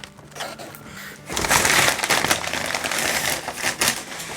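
Mail packaging crinkling and rustling as a parcel is handled and opened, picking up loudly about a second in and easing off near the end.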